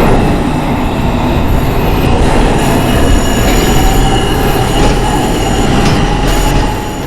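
New York City subway train running through the station with a heavy rumble and steady high-pitched wheel squeal. The sound drops somewhat near the end.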